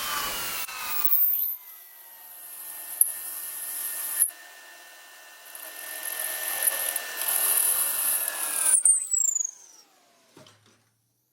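A machine tool's motor running with a whine whose pitch falls and then holds, over a scraping cutting noise and a high hiss. About nine seconds in it shuts off and the whine winds down to quiet.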